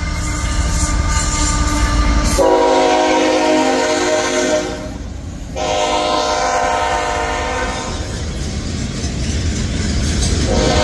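Norfolk Southern diesel freight locomotives passing close with a deep engine rumble. The lead unit's multi-chime air horn sounds for a grade crossing: two long blasts starting about two seconds in, with a short break between them, and a third beginning near the end.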